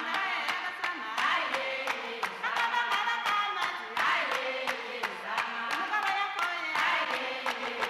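Music: a voice singing phrases over a steady beat of sharp percussive hits.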